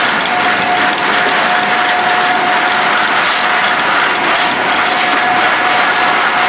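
An 800-model vertical ring die wood pellet mill and its electric drive motor running under load as pellets pour out of the discharge chute: a loud, steady machine noise with a constant whine.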